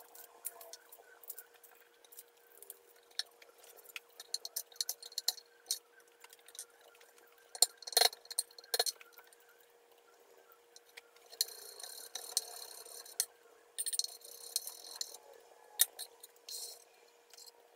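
Chef's knife chopping onion on a wooden cutting board: scattered light taps of the blade on the board, with two louder whacks about eight seconds in. Later come short stretches of dry rustling and scraping, over a faint steady hum.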